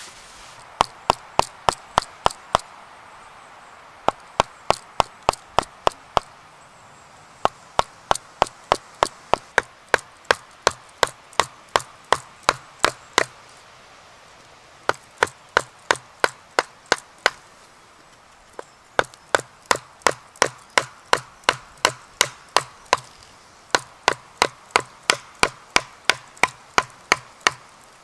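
A wooden log mallet striking the handle of a carving chisel, cutting into a split log. The knocks are sharp and come about three a second, in runs of a few seconds broken by short pauses.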